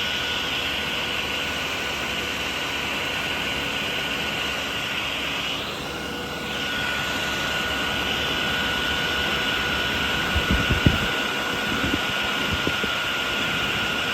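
Eberspächer Airtronic D2 heater's 12-volt blower motor running on a battery with a steady high whine, dipping briefly about six seconds in. A few sharp knocks of handling come about two-thirds of the way through.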